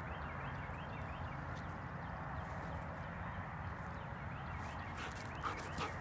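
Steady outdoor background noise with faint high chirps, like distant birds. About five seconds in come quick rustles and light knocks as the German Shepherds start to scuffle on the grass.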